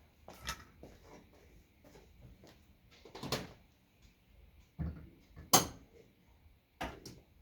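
Scattered knocks and clunks of objects being handled and put away, about six in all, the loudest a sharp bang about five and a half seconds in.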